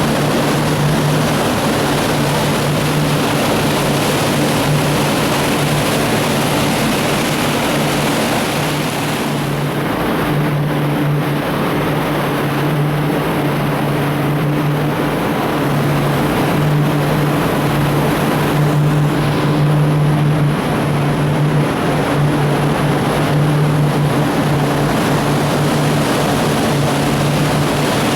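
Motorboat's inboard engines running steadily at cruise, a constant low hum over the rush of water and wind.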